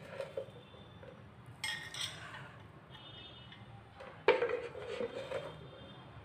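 A hand scooping chopped onions off a wooden cutting board, with light scrapes and rustles and a few knocks and clinks of dishware; the loudest knock comes about four seconds in.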